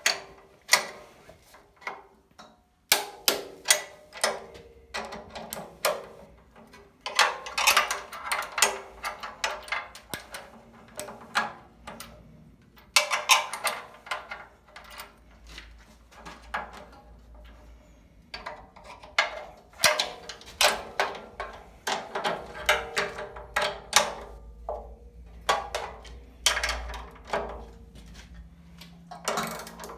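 Torque wrench on a socket clicking in quick runs of sharp clicks, with short pauses between runs, as bracket bolts are tightened to 70 Nm.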